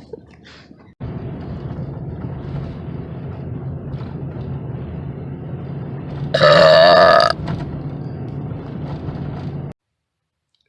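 A single loud, drawn-out burp lasting about a second, a little past the middle, over a steady low rumbling background. The sound cuts off abruptly near the end.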